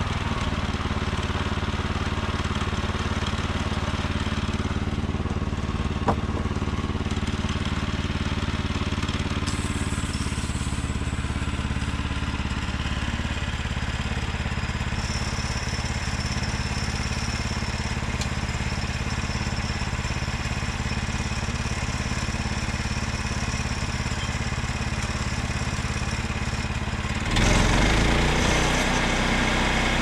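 Petrol engine of a portable bandsaw mill running steadily. Near the end it gets louder and noisier.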